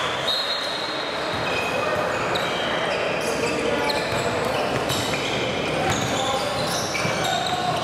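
Basketball game in a hardwood-floored gym: sneakers squeaking in many short chirps as players cut and run, a ball bouncing, and indistinct player voices in the big room.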